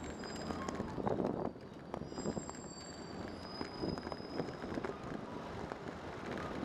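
Riding noise from a bicycle on a city street: steady tyre and road noise with frequent small knocks and rattles over bumps.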